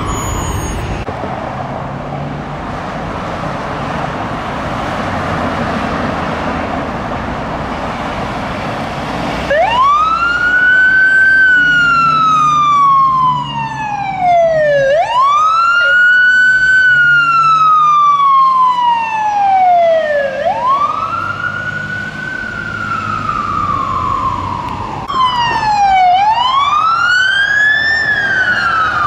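Road traffic noise, then a fire engine's siren on wail, sweeping up quickly and falling slowly about every five and a half seconds. Near the end another siren wail takes over.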